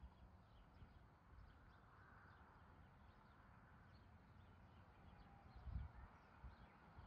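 Near silence: faint outdoor ambience of scattered distant bird chirps over a low rumble, with one brief low thump about six seconds in.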